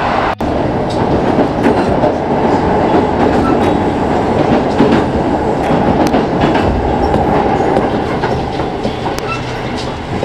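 Kintetsu electric train running at speed, heard from inside the passenger car: a steady rolling rumble with the clickety-clack of wheels over rail joints. The noise eases slightly near the end as the train slows.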